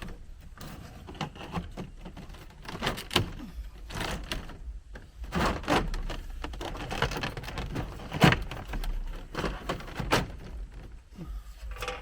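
Hands-on work noise: scattered knocks, clunks and rustles of material being handled, with a sharper knock about eight seconds in.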